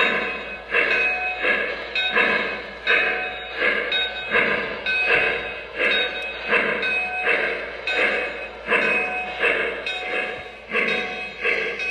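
Lionel O-gauge Western Maryland Shay locomotive running with its steam sound on: an even chuffing rhythm of about one and a half chuffs a second.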